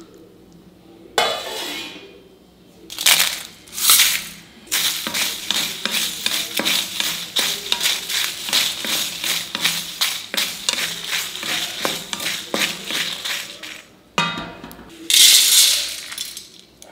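Raw mutton pieces being mixed with a wet curd marinade in a steel bowl: a long run of quick, rhythmic squelching strokes, about four or five a second, with light clinks against the bowl. A few louder, separate scraping sounds come before and after.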